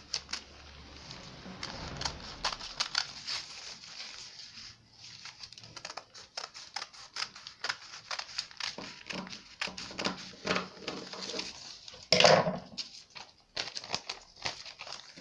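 Scissors snipping through folded pattern paper, a quick run of cuts with crisp paper rustling, as a sleeve pattern piece is cut out. About twelve seconds in comes a louder rustle as the cut paper is picked up and handled.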